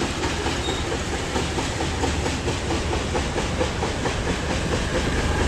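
Motorcycle riding over a rough, broken road surface: a steady low engine and road rumble under a dense, fast rattling from the bike jolting over the rocks.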